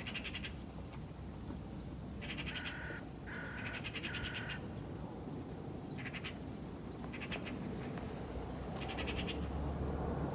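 An animal calling repeatedly: about six short, rapidly pulsing calls spaced a second or two apart, over a steady low outdoor background.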